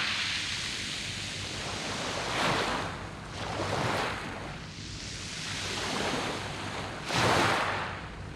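Sea waves washing onto a round-pebble beach, a steady hiss that swells with each wave, with the strongest surges about two and a half seconds in and again near the end.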